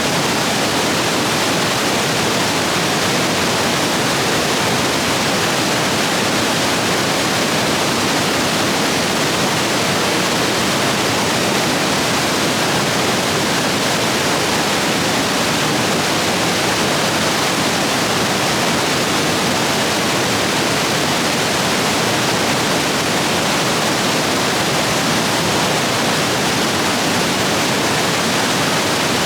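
Rapids rushing steadily, a loud, even roar of fast water swollen by heavy rain.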